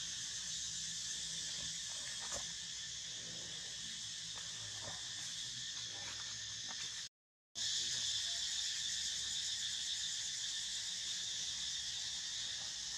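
Steady, high-pitched insect chorus that drones on evenly, with a brief dropout about seven seconds in.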